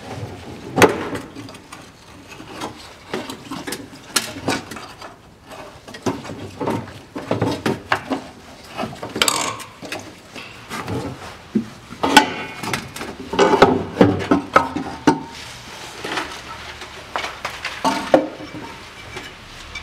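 Rear muffler being worked off its rubber hangers and lowered from under the car: irregular metal clanks and knocks with short scraping sounds, the loudest about a second in and in a cluster about two-thirds of the way through.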